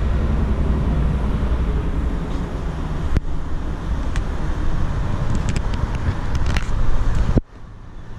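A loud, steady low rumble with a few sharp clicks, which cuts off abruptly about seven seconds in.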